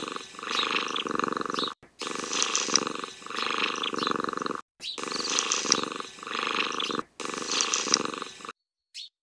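Domestic cat purring, loud and steady, swelling and easing with each breath about once a second. It is broken by three abrupt cuts and stops suddenly near the end.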